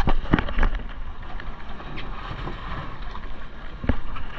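Wind buffeting the microphone on a boat at sea, with a low rumble and several sharp knocks: three in the first second or so, one about two seconds in and another near the end.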